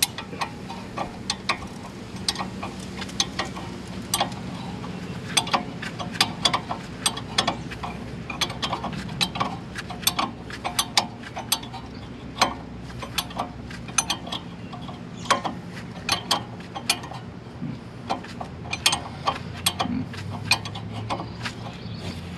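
Socket ratchet clicking in short, irregular strokes as a brake caliper bolt is worked loose, with light metallic clinks in between.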